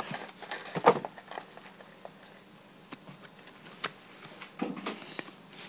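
A toy figure and its packaging being handled: scattered light clicks, taps and rustles, with a louder knock about a second in.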